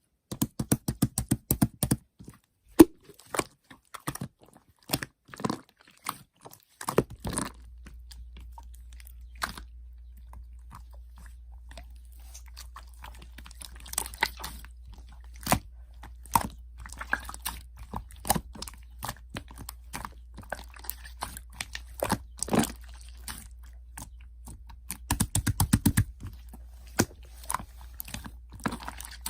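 Slime being squeezed and poked by hand, giving sharp sticky clicks and crackles. The clicks come in dense quick runs near the start and again near the end. A steady low hum comes in about seven seconds in.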